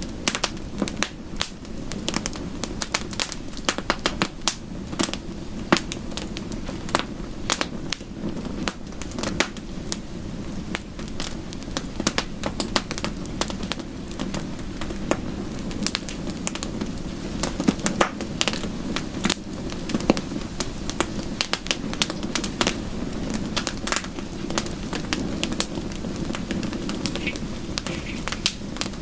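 Wood fire crackling, with many irregular sharp pops over a steady low rush.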